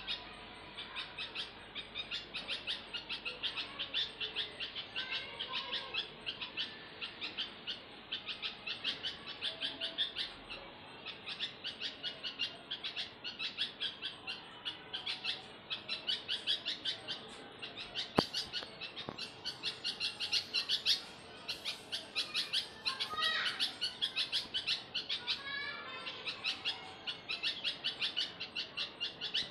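Small birds chirping continually in quick high runs of notes, with a few gliding calls, and one sharp click a little past the middle.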